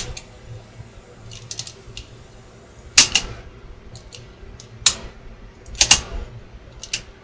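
Transport keys on a Realistic SCT-10 cassette deck clicking as they are pressed and latched. The loudest clicks come about three, five and six seconds in, with lighter ones earlier. A faint low steady hum runs under them.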